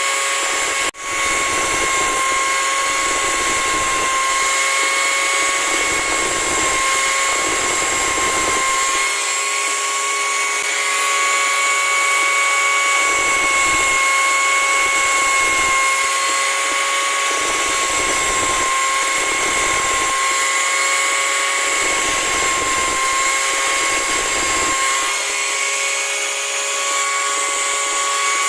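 Small electric grinder sharpening a chainsaw chain: a steady high-pitched motor whine, with a rougher grating that comes and goes every second or two. The sound drops out briefly about a second in.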